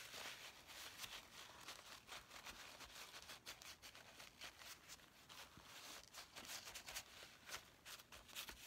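Faint, irregular dabbing and scuffing of an ink applicator on paper as ink is worked onto a journal page.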